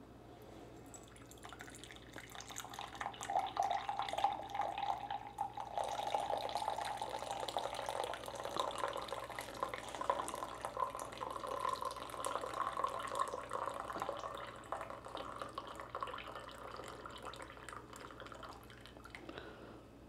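Freshly brewed coffee streaming and dripping from a portable espresso maker into a cup, its pitch rising slowly as the cup fills.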